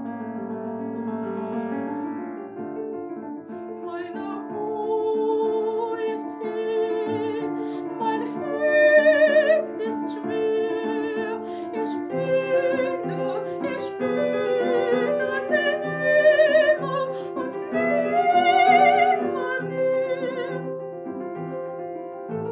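Soprano singing a classical art song with wide operatic vibrato, accompanied by a Petrof grand piano. The piano plays alone for the first few seconds before the voice comes in.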